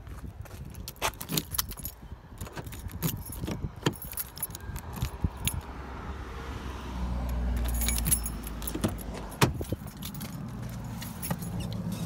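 Car keys jangling and clicking in the hand while a key is worked in a car's door lock, with handling knocks and a low rumble about halfway through, then a sharp click.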